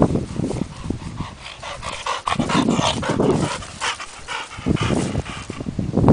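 Yellow Labrador retriever close by, panting and making short vocal sounds in a string of uneven bursts.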